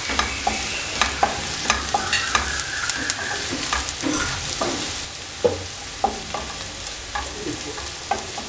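Sliced shallots and curry leaves sizzling in hot oil in a non-stick pan as they are fried toward browning, while a spatula stirs them, scraping and knocking against the pan in many irregular clicks.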